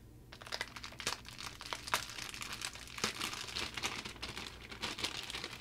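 Small clear plastic bag crinkling and rustling in the hands as it is opened and a metal wire key puller is pulled out, in irregular light crackles.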